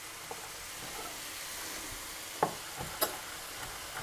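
Grated onion sizzling steadily in olive oil in a frying pan. About two and a half seconds in come a few sharp knocks of a chef's knife on a wooden cutting board as a garlic clove is chopped.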